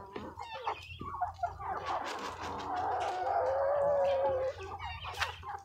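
A flock of white meat chickens (broilers) clucking and chattering together as they crowd in on scattered feed. The calls overlap into a thick chorus through the middle, loudest around three to four seconds in, with a few short clicks mixed in.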